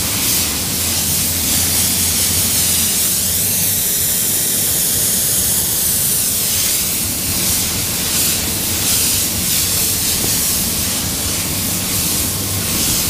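Automotive paint spray gun hissing steadily with compressed air, over a steady low hum. The hiss shifts in tone for a few seconds in the middle.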